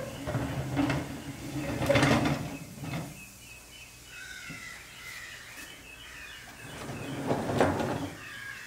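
Rusty Tonka toy cement mixer truck rolled across a workbench top, its wheels rumbling with a few knocks, then falling quiet. About seven seconds in, it is handled and turned on the bench, giving a second short burst of scraping and rolling noise.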